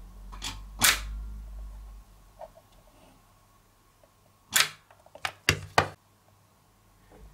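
Handheld battery spot welder firing onto a nickel strip on a lithium cell's terminal: sharp snaps of the weld pulses, two in the first second and four more in quick succession about four and a half seconds in.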